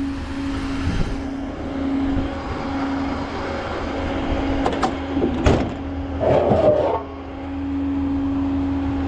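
A vehicle engine idling with a steady hum. A few sharp clicks come about halfway through, followed by a short rattle.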